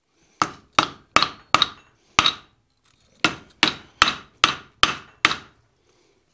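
Blacksmith's hand hammer striking red-hot flat bar on an anvil, each blow a sharp ringing clang, setting down a shoulder for an offset. Twelve blows in two runs of six at a steady pace, with a short pause near the middle.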